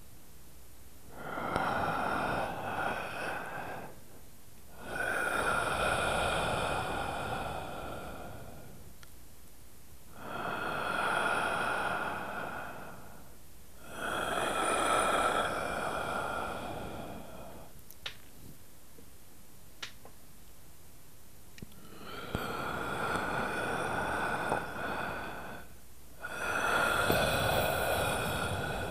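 A recorded track of breathy, hissing swells with a steady whistling tone on top. There are about six swells, each two to four seconds long, rising and falling with short quiet gaps between them. A couple of faint clicks fall in the longer gap near the middle.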